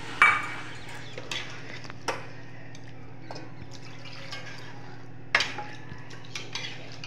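Water poured from a steel bowl into a kadhai of frying potato-tomato curry, splashing at the start, then a perforated steel ladle stirring it and clinking sharply against the metal pan a few times. A steady low hum runs underneath.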